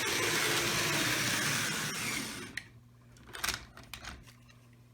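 Bachmann U36B model locomotive's pancake motor and gearing whirring as it runs along the track, freshly reassembled and running well. The whirr stops about two and a half seconds in, followed by a few sharp clicks.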